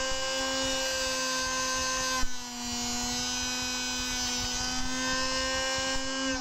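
Electric arrow cut-off saw's motor running with a steady whine. A click comes about two seconds in, after which the pitch sits slightly lower, and the sound cuts off suddenly at the end.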